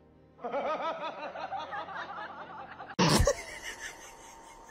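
A person laughing, a run of quick chuckles that breaks off about three seconds in with a short loud burst.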